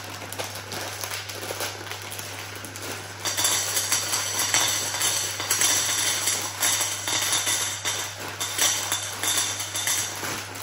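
Plastic bag of dry penne being torn open and crinkled, then the penne poured into an empty stainless steel saucepan. From about three seconds in there is a dense, steady rattle of pasta pieces hitting the metal.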